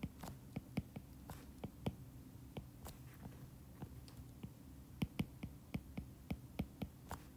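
Stylus tip tapping and clicking on a tablet's glass screen during handwriting: faint, irregular ticks at a few a second, a little louder about five seconds in.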